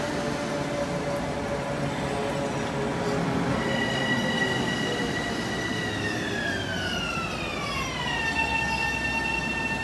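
LIRR M7 electric multiple-unit train moving slowly at the platform, with its electric propulsion whining over a low rumble. The whine holds steady, then glides down in pitch about six to eight seconds in and settles at a lower pitch.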